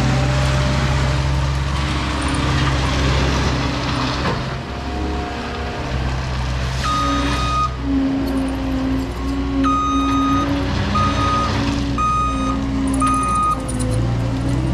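Cat 299D3 compact track loader's diesel engine running steadily close by. About halfway through, its reverse alarm starts beeping, about five beeps, as the machine backs up.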